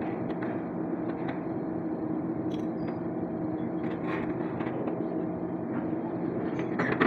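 Steady machine hum, with a few light metal knocks and scrapes as a truck radiator and its fan shroud are handled on a concrete floor.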